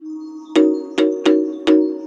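Music: a held pitched tone, then a rhythmic run of sharp, struck, bell-like notes starting about half a second in, four in quick succession.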